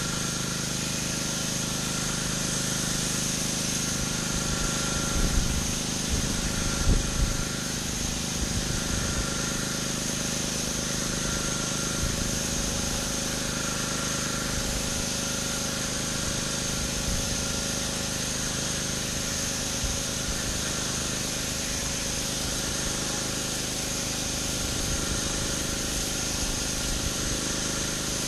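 Pressure washer running steadily, its engine humming under the constant hiss of the high-pressure water spray hitting concrete, with a couple of brief louder bumps about five to seven seconds in.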